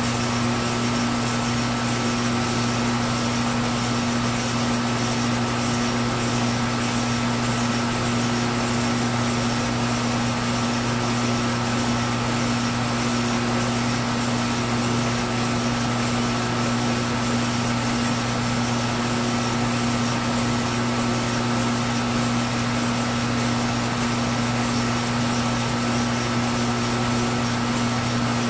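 Milling machine running steadily with an even motor hum while taking a facing cut on the end of a stern tube.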